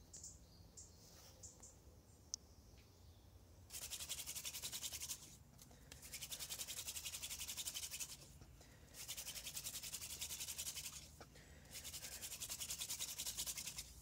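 Fire hand drill: a wooden spindle spun rapidly back and forth between the palms, its tip grinding into a wooden hearth board to build up friction heat for an ember. It makes a dry, hissing rasp in four bouts of about two seconds each, starting a few seconds in, with short breaks as the hands go back to the top of the spindle.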